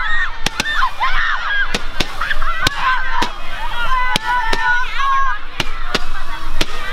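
A rapid series of firework launches: sharp bangs about two a second as comets are fired into the sky. Many short honking calls that rise and fall in pitch sound over them throughout.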